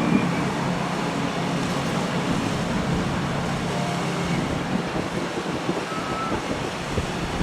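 Radial engines of Boeing Stearman biplanes droning steadily under a noisy hiss.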